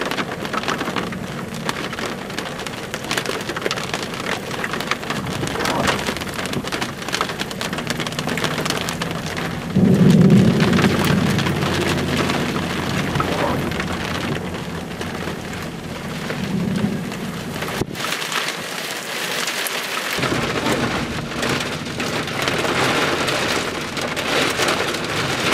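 Steady heavy rain falling, a dense crackling hiss of drops. About ten seconds in a louder low rumble rises suddenly and fades over several seconds.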